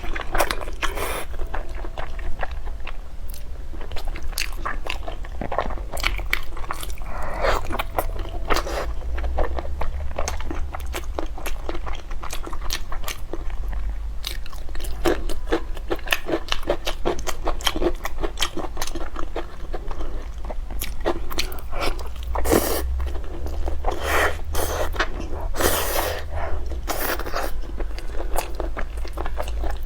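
A person eating close to the microphone: biting, crunching and chewing in quick, dense clicks, with a few louder crunches in the last third, over a low steady hum.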